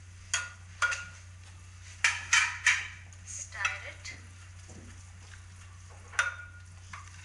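A spoon clinking and scraping against a dish as chopped ginger and garlic are added to the bowl and stirred: several sharp clinks, three in quick succession about two seconds in and one more near the end.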